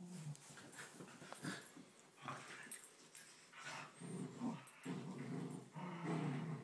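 Two poodles growling as they tug at a blanket between them, with scuffling and rustling of the blanket; the growling gets louder and steadier about four seconds in.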